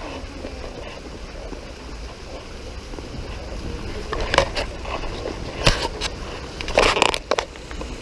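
Footsteps scuffing and scraping on bare rock while climbing over stream-side slabs, with a few sharp scuffs and knocks in the second half, over a steady rushing of a small waterfall.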